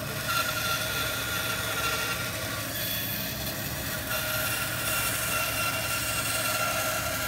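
A workshop machine running steadily: an even whirring noise with a faint held high note over it.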